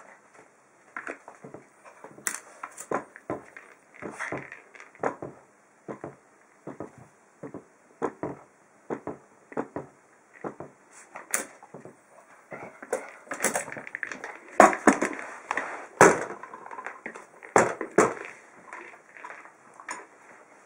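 A large hollow plastic ball being pawed and nosed about by a small dog, knocking against a metal tabletop. It makes a string of irregular knocks and clatters that grow busier and louder in the second half.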